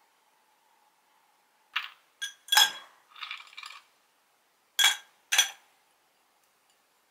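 Ice cubes dropped one by one into an empty tall drinking glass, clinking sharply against the glass and each other: five clinks with a brief clatter of ice settling between the third and fourth.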